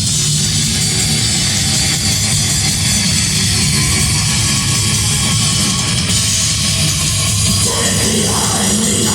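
Live heavy metal band playing loud with distorted electric guitars, bass and a drum kit, heard from the audience. A voice seems to come in near the end.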